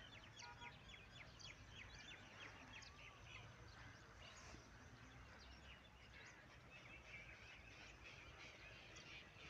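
Faint chorus of many small birds chirping, quick repeated chirps that are thickest in the first few seconds, with a low steady hum beneath.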